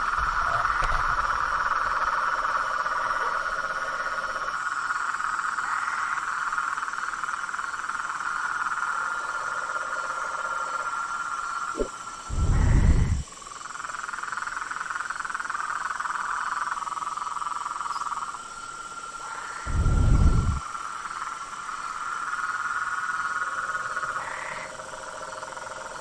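Chorus of frogs and tree frogs calling together: steady overlapping trills, with a lower call coming and going underneath and thin high tones above. Twice, about halfway and again about three-quarters through, a brief low whoosh rises above the chorus.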